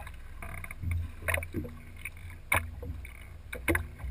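Water splashing beside a fishing boat as a snagged bighead carp is brought to the landing net, with three sharp splashes about a second apart over a steady low rumble.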